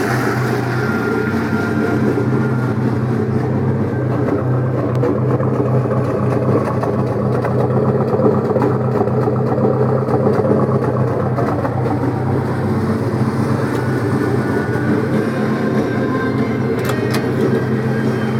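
1978 Ford Maverick's four-cylinder engine idling steadily through its sport exhaust, with a few faint clicks near the end.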